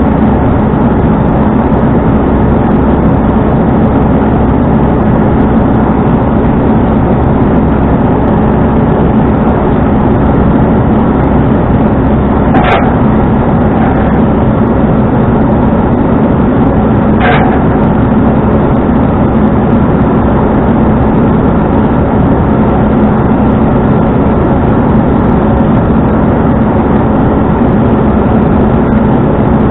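Tow truck running steadily, a constant even engine and road noise, with two short sharp clicks about halfway through.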